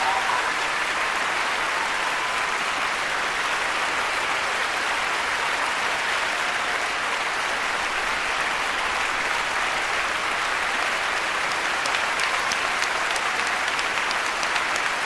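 Large theatre audience applauding: dense, steady clapping from a full hall, with single claps standing out more sharply near the end.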